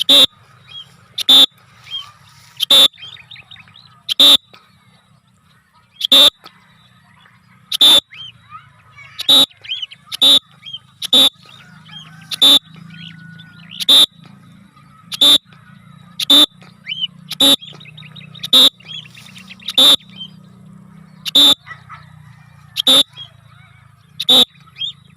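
Cockatiel giving loud, harsh contact calls over and over, about one every second or so, with softer chirps in between.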